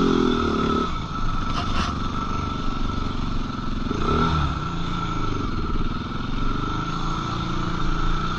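Suzuki LT-R450 quad's single-cylinder four-stroke engine riding on the dunes. It is loud under throttle at first, drops back to a lower off-throttle note about a second in, and gives a short throttle blip about four seconds in.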